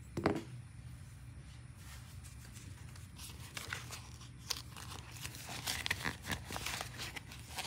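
Paper banknotes rustling as they are handled and counted, with the crinkle of a clear plastic zip pocket in a binder being opened, in many quick bursts from about three seconds in. A brief knock just at the start.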